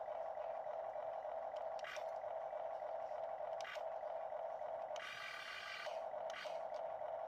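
Small electric motors of a Huina remote-control toy excavator whining steadily as the arm and bucket move. The whine cuts out briefly with a click three times, and about five seconds in a higher, buzzier motor runs for under a second.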